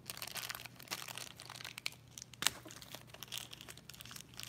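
Mystery pin packaging crinkling and tearing as it is ripped open by hand, with one sharp snap about two and a half seconds in.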